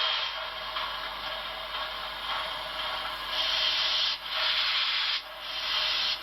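Steam exhaust sound from an HO scale model steam locomotive's Paragon 4 sound decoder, played through the model's small speaker. A hissy steam sound turns, about halfway through, into slow separate chuffs about one a second, as at low running speed.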